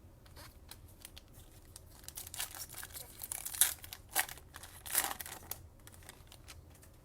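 Foil trading-card pack wrapper being torn open and crinkled by hand, a series of crackling rips, the loudest a little past halfway and near the end.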